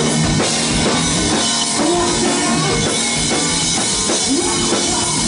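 Hard rock band playing live: drum kit, electric bass and guitar, with long held notes that slide up into pitch about two and four seconds in.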